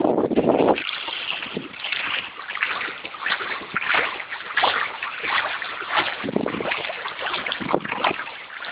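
Bay water splashing and sloshing in irregular bursts close to the microphone, with wind buffeting it, loudest in the first second.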